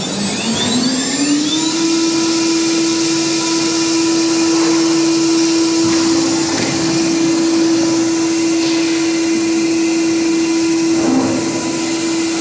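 CNC router spindle fitted with a circular saw blade, finishing its spin-up. Its whine climbs for the first couple of seconds, then holds at one steady pitch over a constant hiss. A brief lower note cuts in near the end.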